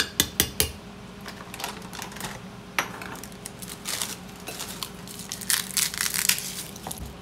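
A metal spoon clinks sharply against a glass blender jar about four times in the first second. It is followed by crackling and crinkling from a plastic bag and garlic being handled, in bursts about four seconds in and again near the end.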